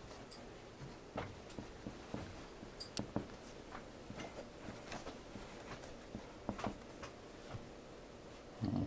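A Sharpie felt-tip marker writing on a large printed cutout board: faint, scattered short scratches and taps of the tip as letters are drawn, over quiet room tone.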